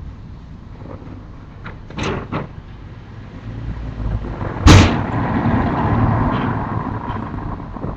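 Sharp knocks and clatters, a few in the first half, then one loud bang about four and a half seconds in, over a rumbling noise that swells and fades.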